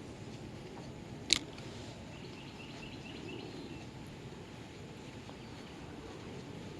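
Quiet outdoor background with a faint run of high, rapid chirps from a bird or insect a couple of seconds in, and a single sharp click about a second in.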